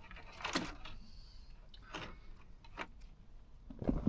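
A few light clicks and knocks of handling, then a louder low rumble near the end.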